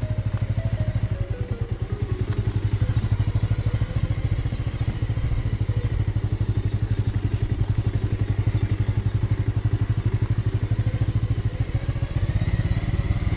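Motorcycle engine running, a fast, even pulse of firing strokes that holds steady throughout.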